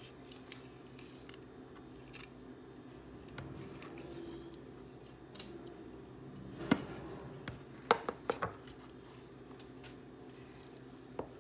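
Quiet handling of raw chicken pieces in a bowl as the fat is pulled off, with soft scattered clicks. A few sharp knocks against the bowl come about two-thirds of the way through, over a faint steady hum.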